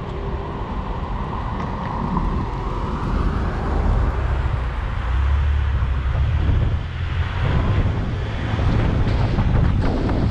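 A car driving, heard as a steady low road rumble and noise, with wind buffeting the microphone.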